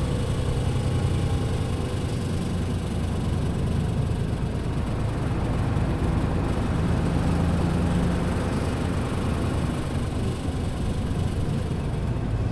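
Hino KC-RU1JJAA large short-bodied bus, fitted with a medium-duty engine, on the move: a steady engine and drivetrain drone with road noise. The uploader calls this bus one with a lot of odd noises.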